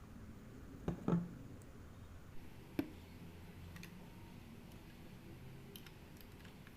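Toy and its packaging being handled during unboxing: a few sharp plastic clicks and knocks, two close together about a second in and another near three seconds, then a scatter of faint ticks.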